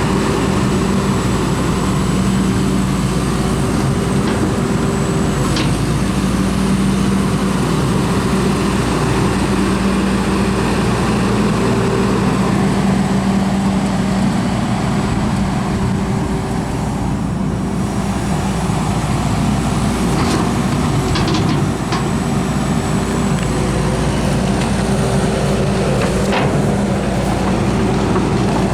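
Cat 320DL excavator's C6.4 ACERT diesel engine running steadily, with a faint high whine and a couple of brief sharp knocks.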